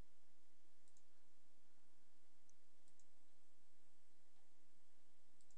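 A few faint computer mouse clicks, about four, spaced irregularly, over a steady low electrical hum.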